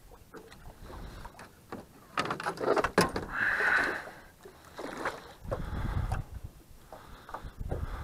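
Scattered knocks and clatter of fishing gear in a small boat, with a louder burst of splashing or rustling about three seconds in, while a fish is played beside the boat.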